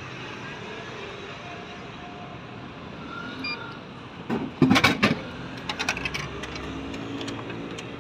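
Drink vending machine dispensing a bottle: a short beep, then about halfway through the bottle clatters and thuds down into the pickup tray, followed by a few lighter knocks. A steady traffic hum runs underneath.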